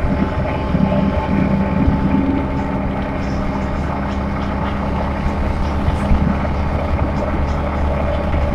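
City bus engine running steadily, with road noise, as the bus drives along its route.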